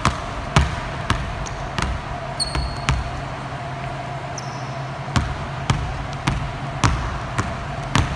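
Two basketballs dribbled together on a hardwood gym floor. The bounces come about twice a second, with a pause of about two seconds in the middle before the dribbling starts again.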